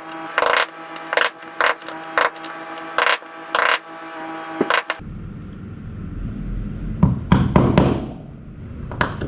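A hand tool scraping and knocking at rotted wood in a boat's planking, in short sharp strokes, over a steady motor hum that cuts off about five seconds in. Heavier, rougher scraping follows near the end.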